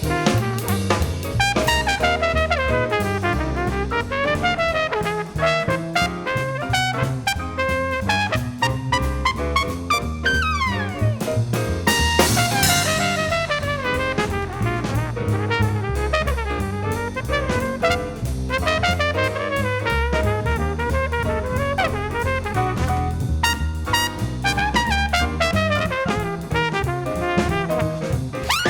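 Background music: upbeat jazz with brass (trumpet and trombone) over a drum kit.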